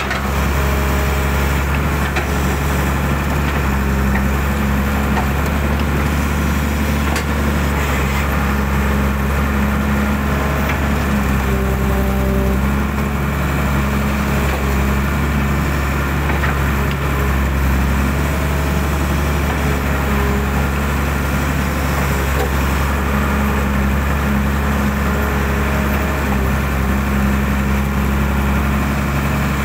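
Hydraulic excavator's diesel engine running steadily under load, a constant low drone with a faint intermittent whine from the hydraulics.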